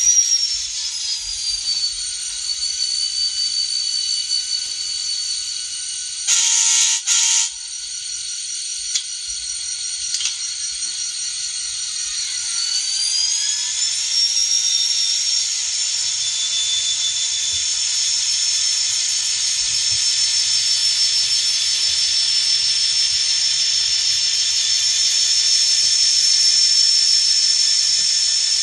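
ESU LokSound 5 sound decoder in an N scale EMD SD40-2 model, playing recorded sounds of the locomotive's turbocharged 16-cylinder 645 diesel through a tiny speaker, so the sound is thin and high-pitched. The engine and turbo whine rise at the start and then settle. A horn blast of about a second comes about six seconds in. The engine note climbs again around thirteen seconds and holds.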